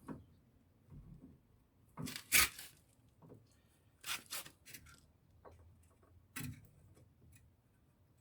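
Tools and parts being handled during a front ball joint replacement: a few short knocks and clatters, the loudest a pair about two seconds in, more near the middle and once more later.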